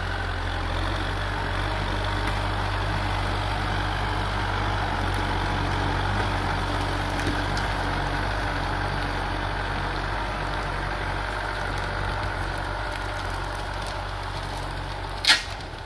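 Kubota M6040 tractor's four-cylinder diesel engine running steadily as it pulls a tillage implement through the field, easing off slightly near the end as it moves away. A single sharp click cuts in near the end.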